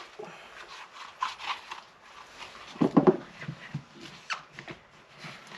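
Rubbing and light knocks as parts of a car's strut assembly, the rubber bump stop and dust cover, are handled and worked loose by hand, with a louder clatter about three seconds in.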